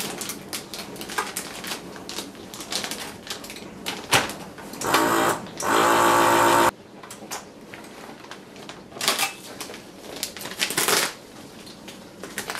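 Plastic vacuum bag crinkling and the lid of a countertop vacuum sealer clicking. About five seconds in, the sealer's vacuum pump runs steadily for under two seconds and cuts off suddenly as the bag is drawn down and sealed. More bag rustling follows as the sealed bag is taken out.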